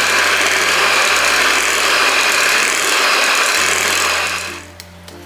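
Electric hand mixer running steadily, its beaters whisking a creamy cream cheese mixture in a glass bowl, then switched off about four and a half seconds in.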